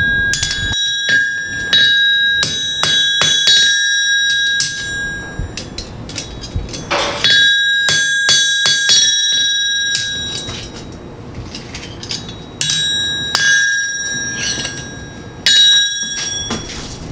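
Blacksmith's hand hammer striking a steel bar on an anvil in three quick runs of blows with short pauses between, the anvil ringing after each blow.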